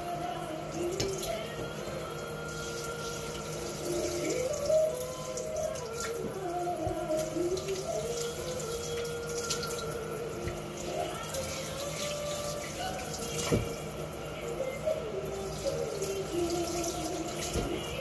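Kitchen tap running into a stainless steel sink as fish are rinsed by hand, water splashing steadily, with a couple of sharp knocks, one of them loud near the middle.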